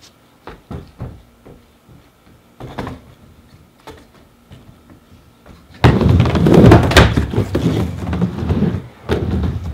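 A few light knocks as a skateboard is set down on the coping of a plywood mini ramp, then about six seconds in a sudden loud rumble of the skateboard's wheels rolling on the plywood as the skater drops in and rides the ramp.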